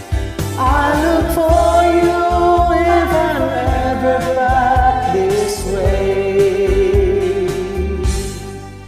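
Closing bars of a karaoke backing track: a country-folk band with a steady drum beat under a long, wavering melody line, fading down near the end.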